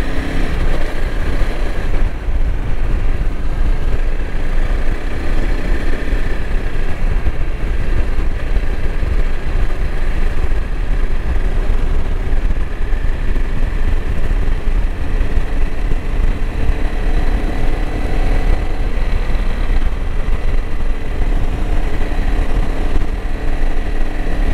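Honda CRF300L Rally's single-cylinder engine running steadily on the move, under a constant low rush of wind over the microphone.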